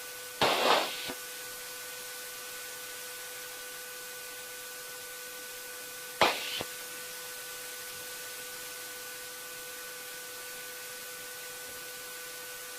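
Steady hiss with a faint steady hum from a jet's cockpit intercom line, with two short bursts of noise on the channel, about half a second in and about six seconds in.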